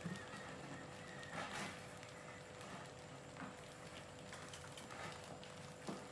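Rats' claws scrabbling and tapping on a plastic bucket's rim and lid: a few faint scrapes and small clicks, with a sharper click just before the end, over a steady faint hum.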